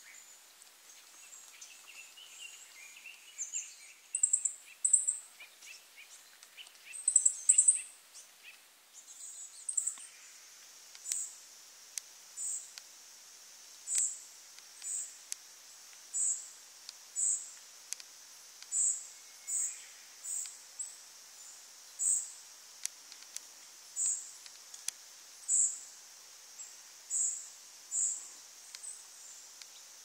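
Fledgling songbirds begging for food with thin, high call notes. A few louder chirps come in the first eight seconds, then from about ten seconds in the calls repeat steadily about once a second, over a faint steady high hiss.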